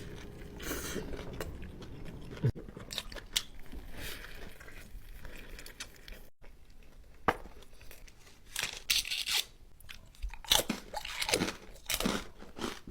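Close-miked chewing and crunching of food, with scattered short bites and crunches that come thicker and louder in the second half.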